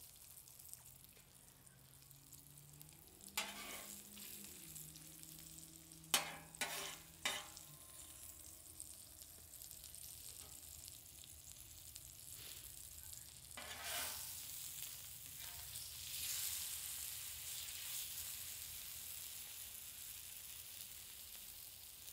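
Tuna and wahoo pieces sizzling in avocado oil on a hot propane flat-top griddle. The sizzle is a faint, steady hiss that grows louder about two-thirds of the way through. A few sharp clicks of a metal spatula on the steel griddle come about three and a half seconds in, three in quick succession around six to seven seconds, and one more around fourteen seconds.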